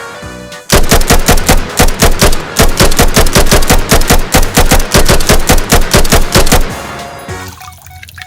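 Rapid automatic gunfire, a burst of about six seconds at roughly five shots a second, over background music.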